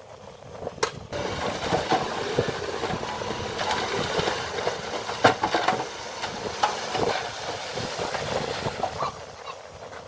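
A dump truck's load of red soil and rock clods sliding out of its tipped bed and tumbling onto the pile, a noisy rush with many irregular knocks and rattles of falling lumps. It starts suddenly a second in and dies down near the end.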